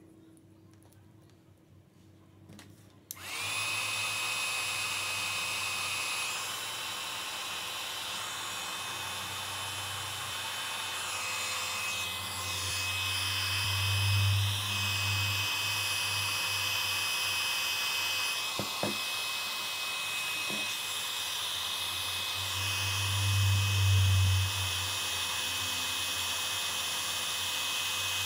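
A 300 W mini hot air gun is switched on about three seconds in, its small fan motor spinning up into a steady whine over a rush of air as it blows on heat-shrink tubing to shrink it. The air rush swells louder twice, around the middle and near the end.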